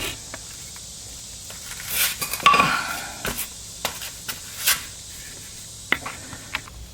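Scattered light metallic clicks and clinks of rear drum parking-brake hardware (shoes, springs, star adjuster) being handled and fitted, with a short scraping sound about two and a half seconds in.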